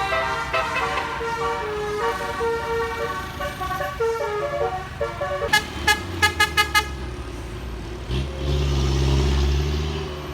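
A bus's basuri telolet musical horn playing a melody in changing tones, then a quick run of about six short toots. A low diesel engine rumble swells in near the end as the bus goes by.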